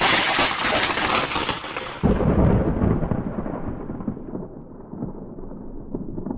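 Thunderclap from a nearby lightning strike: a sharp, bright crack at the start, a second heavy boom about two seconds in, then a rolling rumble that slowly fades.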